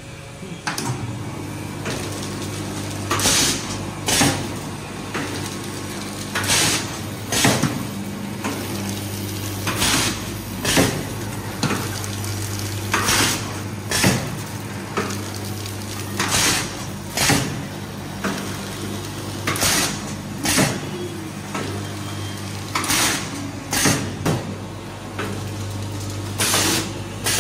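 Automatic vertical pouch packing machine starting up about a second in and running: a steady hum from its vibratory feeder and drive, with pairs of short pneumatic hisses about every three seconds as the air cylinders work the sealing jaws on each pouch.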